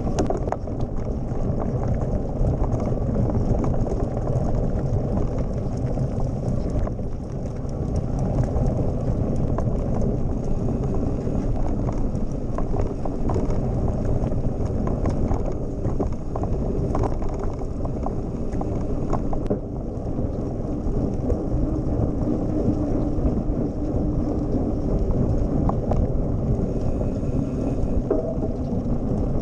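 Mountain bike rolling along a bumpy dirt track, heard from a camera mounted on its handlebar: a steady rumble of the tyres on dirt and gravel, with frequent small rattles and knocks as the bike goes over bumps.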